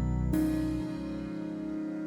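Background music: soft sustained instrumental chords, with a new chord coming in about a third of a second in.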